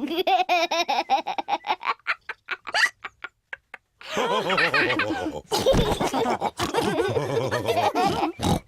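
Cartoon characters laughing: a quick run of short laughs that dies away about three seconds in, then, after a brief pause, several voices laughing together.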